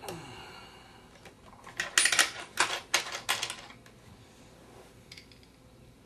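A quick cluster of light metallic clicks and clinks, starting about two seconds in and lasting about a second and a half: a hand fumbling for eyeglasses among loose coins on a wooden bedside table.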